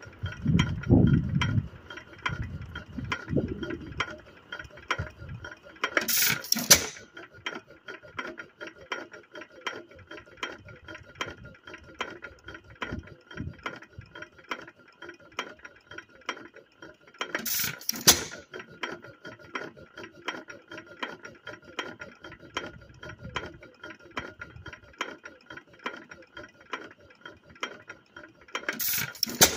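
6hp Associated single-cylinder hit-and-miss engine running: rapid, regular clicking of its valve gear while it coasts, broken by loud firing strokes in the first few seconds and again about 6, 18 and 29 seconds in, as it fires only when its speed drops.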